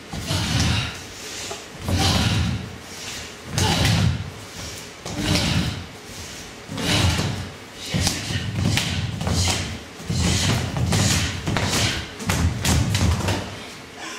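Dancers' feet and bodies thudding heavily on a stage floor in a rough rhythm, about one thud every second and a half at first and faster, roughly every half to three quarters of a second, after about eight seconds in.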